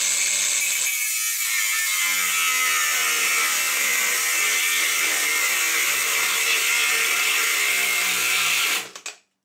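Cordless angle grinder with a cut-off disc cutting through a steel exhaust pipe beside a catalytic converter: a continuous loud, hissing grind that stops abruptly near the end, with the tool's battery almost flat.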